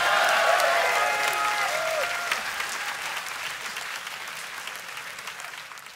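Concert audience applauding, with shouted cheers in the first two seconds; the applause fades down steadily.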